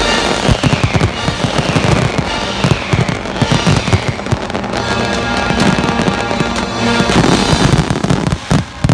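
Fireworks finale: a dense, rapid barrage of shell bursts and crackling over show music, stopping sharply just before the end.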